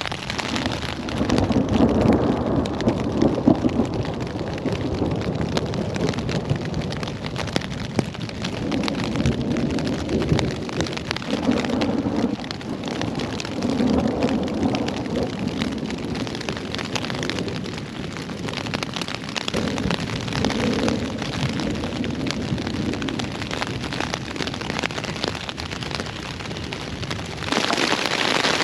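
Hard rain on a tent, heard from inside, with thunder rumbling several times. Near the end the rain suddenly grows louder.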